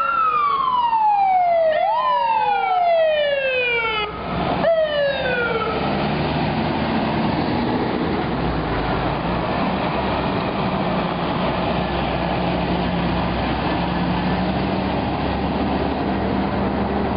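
Fire truck's siren sweeping quickly up in pitch and gliding slowly down, blipped up twice more over the first six seconds before winding down. After that the truck's engine runs steadily under street noise.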